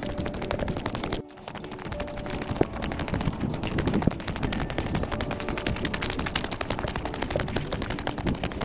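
Rapid, dense crackling and rustling of dry grass and brush scraping against the camera on its stick while walking through an overgrown trail, easing off briefly about a second in.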